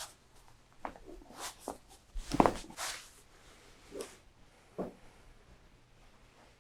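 Chiropractic adjustment: short rustles and clicks of handling on the treatment table, with a louder cluster of pops about two and a half seconds in.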